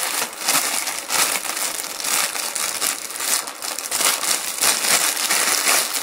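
Clear plastic packaging bag holding hair clipper guide combs crinkling continuously as it is handled and pulled, a dense run of small sharp crackles.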